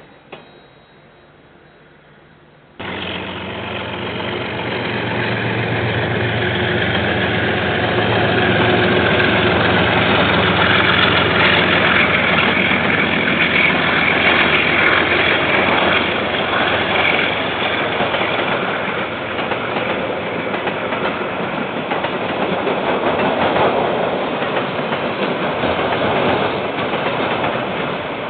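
KiwiRail diesel locomotive and train passing, starting abruptly about three seconds in. The locomotive's engine runs with a steady low hum, followed by the wagons rolling along the rails.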